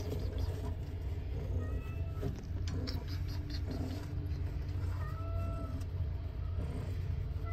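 Domestic cat meowing briefly twice, about one and a half seconds and five seconds in, over a steady low hum and a few light clicks.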